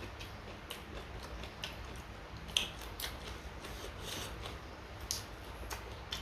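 Crisp food being chewed close to the microphone: scattered sharp crunches at irregular intervals, the strongest about two and a half seconds in.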